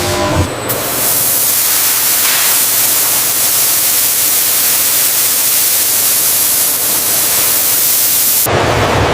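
A loud, steady hiss that starts abruptly just under a second in and cuts off suddenly near the end.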